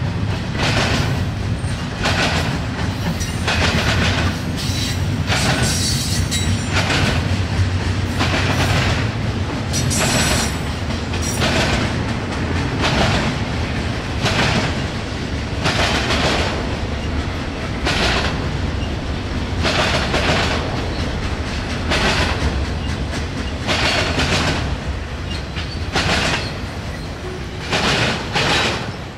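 Freight train of double-stack container cars and an autorack rolling past, its steel wheels clacking over rail joints about once a second over a steady rumble. The end of the train passes near the end and the clacking thins out.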